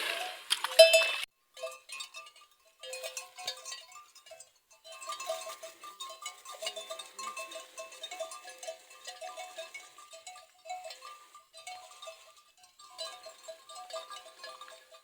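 Many small bells worn by a flock of sheep and goats clinking and jangling irregularly as the animals move, loudest in the first second.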